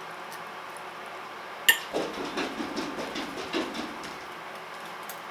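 A metal fork clinks sharply on a ceramic plate once, with a short ring, followed by about two seconds of irregular soft knocks and rustles.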